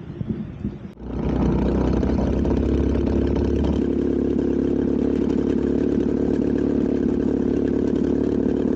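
DLE170 twin-cylinder two-stroke paramotor engine, uneven for the first second, then running at a steady, even speed from about a second in.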